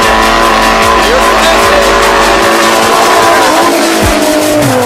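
A car doing donuts on wet pavement, its engine revving and its tyres squealing, with loud music with a heavy bass playing alongside.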